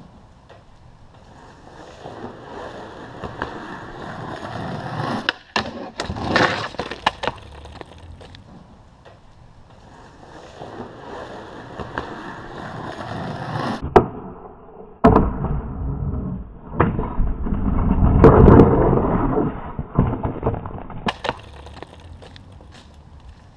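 Skateboard wheels rolling on a concrete driveway, twice building up to sharp clacks of the tail popping and the board hitting down. The second run goes into a long, loud scrape of a tailslide along a wooden box, then the board clatters away on the concrete after a bail.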